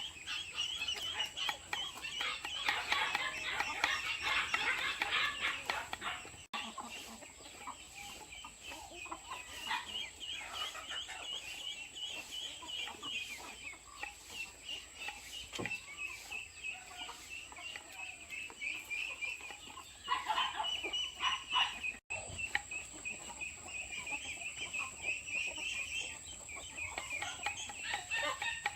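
A flock of hens clucking, with many short calls overlapping throughout. They are busiest in the first six seconds and again about twenty seconds in. A steady high-pitched tone runs underneath.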